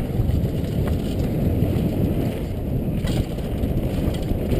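Downhill mountain bike riding over loose, dusty dirt and rock: a steady low rumble of the tyres on the trail and wind on the helmet camera's microphone, with a few sharp clacks from the bike about a second and three seconds in.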